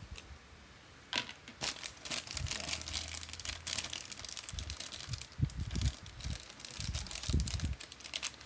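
Small plastic action-figure parts being handled: irregular crinkling and clicking rustles with a few dull knocks, starting about a second in after a brief lull.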